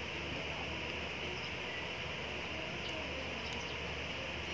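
Steady high-pitched background hiss, with two faint light clicks about three seconds in.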